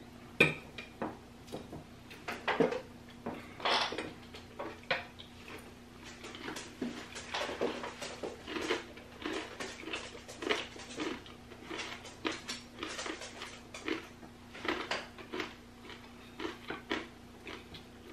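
Metal forks clinking and scraping on ceramic plates as two people eat, in many irregular short taps and clicks.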